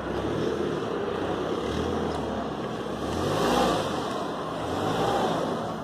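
A car engine running on the street, a low rumble amid outdoor street noise, swelling briefly about three and a half seconds in.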